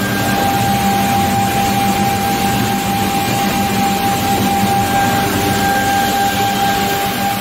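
Felder G480 edge banding machine running steadily, a constant high whine over a lower hum and a broad mechanical noise.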